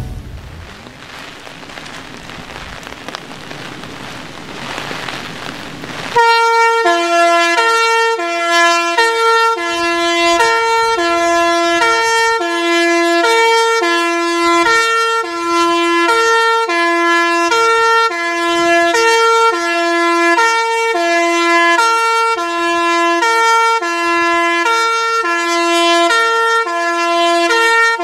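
Rain and wind noise, then about six seconds in a Kockum Sonics MKE 75/350-460 compressed-air two-horn fire siren starts sounding the fire alarm signal. It is a loud, full two-tone call, its low and high horn notes alternating about once a second. The filmer felt the siren was not working properly, which the fire brigade denied.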